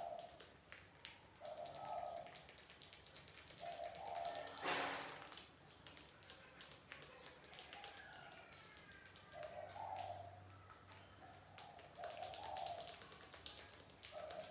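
Small clicks and taps from mice moving about and nibbling spilled grain on a tiled floor, with a short louder rustle about five seconds in. A soft low call repeats every second or two in the background.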